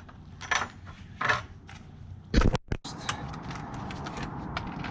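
Scattered metallic clicks and clinks from tools and hardware being handled, with a louder knock about halfway through, followed by a steady low hum under more small clicks.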